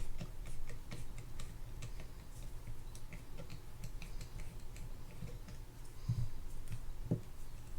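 Light, irregular clicking and ticking of a small screwdriver working a screw out of a Penn Spinfisher 8500SS spinning reel, metal on metal, with a couple of soft thumps near the end.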